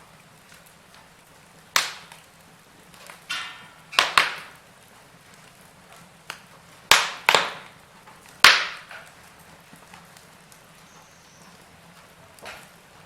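Wood fire crackling, with about six loud sharp pops from the burning logs, most of them in the first two-thirds, over a low steady hiss.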